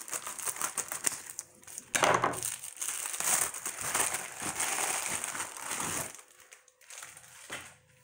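Plastic padded mailer crinkling and rustling as it is handled and opened, louder about two seconds in; the rustling dies down after about six seconds.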